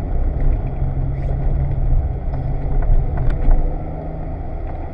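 BMW E30 rally car's engine running steadily, heard from inside the cabin with tyre and road noise and a few light knocks. The engine eases off slightly about four seconds in.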